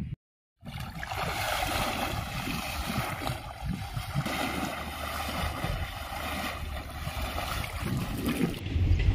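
Water splashing and sloshing around a person's legs as he wades through waist-deep water: a steady rushing wash. A louder low rumble comes in near the end.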